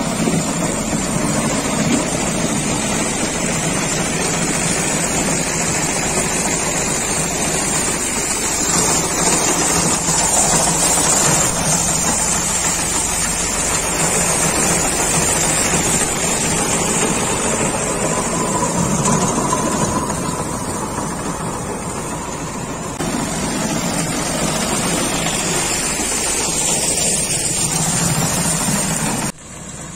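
Tractor diesel engine running steadily under load as its tractor-mounted reaper cuts standing wheat, the engine mixed with the clatter of the cutter bar. The level jumps up about two-thirds of the way through and drops off suddenly near the end.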